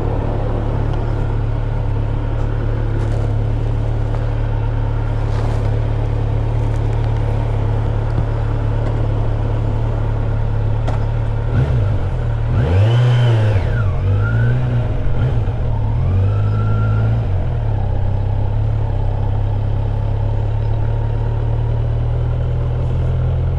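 Kawasaki Z900 SE motorcycle's inline-four engine running steadily, its pitch rising and falling several times about halfway through as it is revved.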